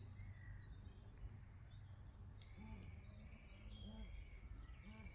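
Faint outdoor ambience: scattered distant bird chirps over a steady low rumble.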